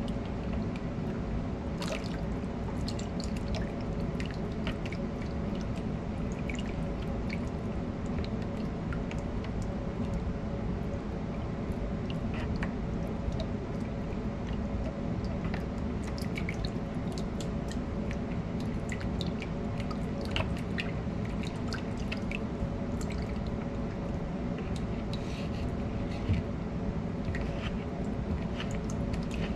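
Silicone spatula stirring a runny butter mixture in a plastic mixing bowl: soft wet sloshing and many small irregular clicks and taps of the spatula against the bowl, over a steady low hum.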